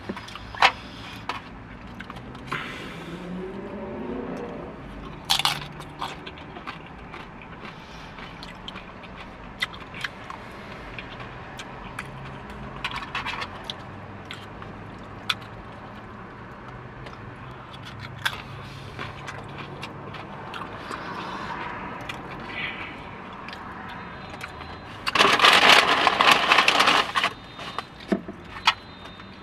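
Takeout food bowl and its packaging being handled in the lap: scattered scrapes, clicks and crinkles, with a louder stretch of rustling lasting about two seconds near the end.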